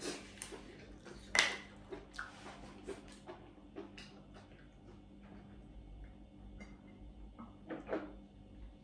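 A water bottle being handled and its cap twisted open, with a few crackles and clicks in the first two seconds. Then quiet sips of water with faint clicks, and another click near the end.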